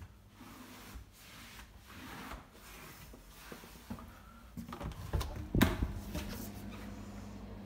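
Knocks and rubbing of a white panelled interior door being handled and opened, louder as it goes, with the loudest sharp knock about two thirds through. A low steady hum follows near the end.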